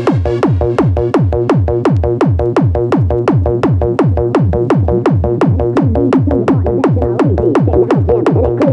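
Fast electronic dance music in the makina style, played from vinyl on DJ turntables, driven by an even, rapid kick drum. The high end drops out right at the start, and a busier melodic line comes in near the end.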